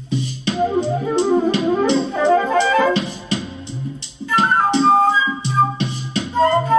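Instrumental music: a flute plays a quick run of notes, then longer held notes, over a steady bass line and drum beat.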